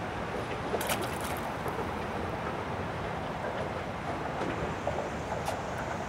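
Steady rushing noise of wind and water, with a short cluster of clicks about a second in.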